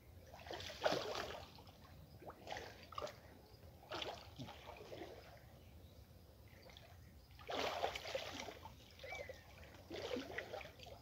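Muddy water sloshing and splashing in irregular bursts as a man wades waist-deep and gropes along the bottom with his arms in the water. The longest burst comes about three-quarters of the way through.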